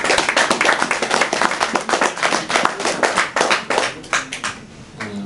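Small audience applauding: dense clapping that thins out and stops about four and a half seconds in.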